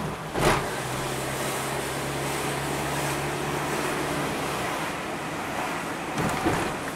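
Car running along a street, heard from inside the cabin: a steady rumble of engine and tyre noise. About half a second in there is a sharp thump, and a low steady engine hum holds for the next few seconds before fading back into the road noise.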